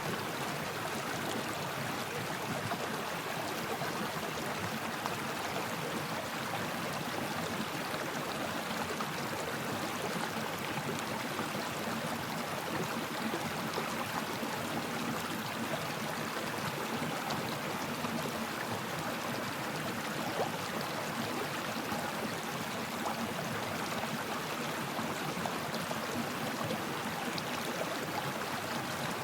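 Stream water flowing and babbling steadily, an even rushing hiss with small splashes and no pauses.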